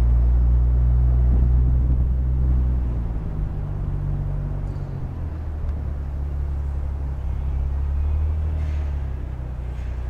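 A car engine idling, a low steady drone that eases a little in level a few seconds in.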